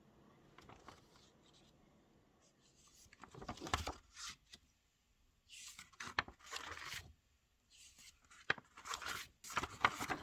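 Handling noises: three short bouts of rustling and crinkling, like paper or wrapping being torn or handled, with a few sharp clicks.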